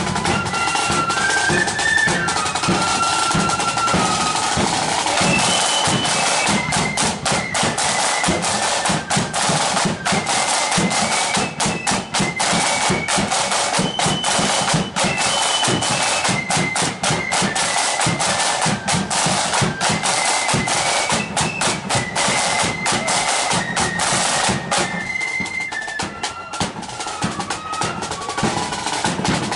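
Marching flute band playing a tune on the march: flutes carry a stepping melody over rapid side-drum rolls and strokes. About 25 seconds in, the drumming thins for a couple of seconds while the flutes play on, then the drums come back in.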